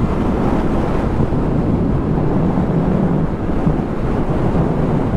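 Wind buffeting the microphone of a Yamaha MT-10 motorcycle at motorway speed, a dense steady rush, with the bike's crossplane inline-four engine running evenly beneath it.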